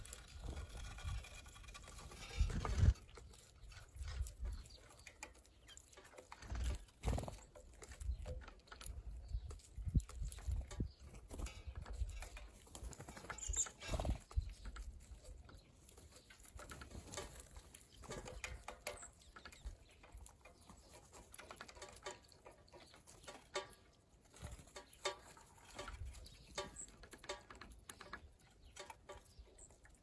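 Blue jays and a red-headed woodpecker feeding at a platform feeder: irregular soft taps and knocks of beaks pecking at seed and birds hopping and landing on the tray.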